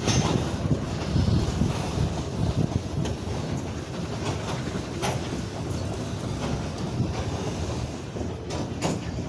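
Loaded freight wagons rolling slowly past on rough, poorly maintained track, with a steady low rumble and occasional sharp clicks and clanks from the wheels and couplings. Wind buffets the microphone.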